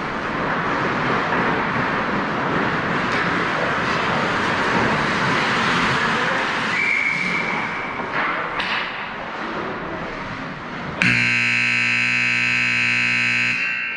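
Ice hockey arena horn blaring for about two and a half seconds near the end, the horn that marks the end of a period. Before it, steady rink noise with a short, high whistle about seven seconds in.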